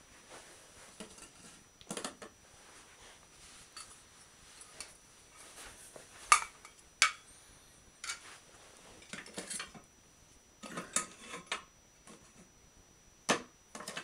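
Irregular clinks, clicks and knocks of small metal and glass parts being handled and set down on a wooden box top as a lamp, mirror and lens are adjusted, the sharpest knocks about six and seven seconds in and again near the end.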